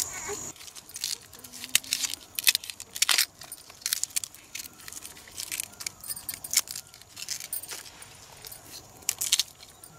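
Thin wild bamboo shoots being peeled by hand: irregular sharp cracks and snaps as the husks are split and stripped from the stalks.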